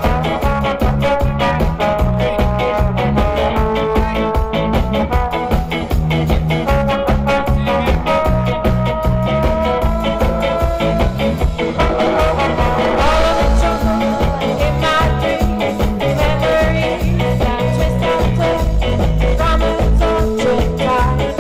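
Live band playing an instrumental passage of a song, with a steady beat over a bass line and held notes, and a run of notes bending up and down about twelve seconds in.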